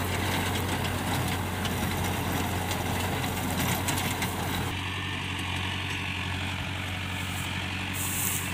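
Mahindra Arjun 605 DI tractor's diesel engine running steadily under load as it pulls a rotavator through dry stubble, with the tilling rattle of the rotavator's blades. About halfway through it changes to a steadier, more distant engine hum.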